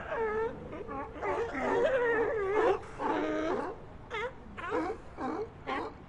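Several sea lions barking and calling over one another: a few longer, wavering calls in the first half, then a quick run of short barks.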